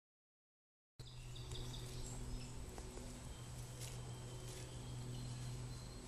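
Silent for about a second, then outdoor ambience: a steady low hum with a thin, steady high whine over it, and a few faint, short bird chirps.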